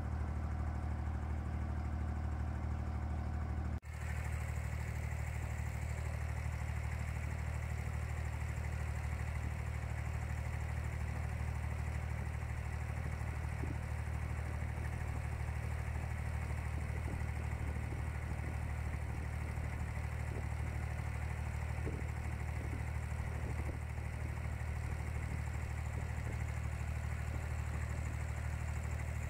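Steady low drone of a wooden abra water taxi's engine running as the boat crosses the creek, briefly cut off about four seconds in.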